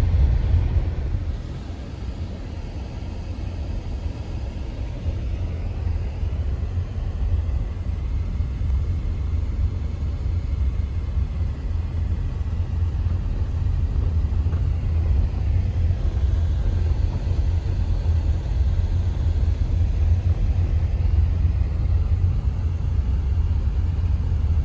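Steady low rumble of a car driving on a dirt road, heard from inside the cabin: engine and tyre noise with no other distinct events.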